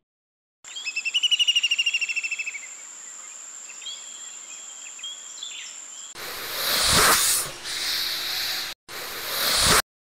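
Intro sound effects: a rapid chirping, bird-like trill over a steady high whine, then fainter chirps, followed about six seconds in by two swells of rushing noise, the second cutting off abruptly.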